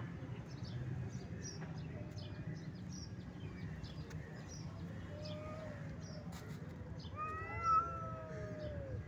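A cat meowing: a short meow a little past halfway, then a longer, louder drawn-out meow near the end.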